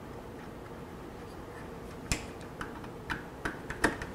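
A small screwdriver and wire working at the screw terminal block of a Gecko G540 stepper driver. After about two seconds of faint steady hum come five light, sharp clicks and taps, about half a second apart.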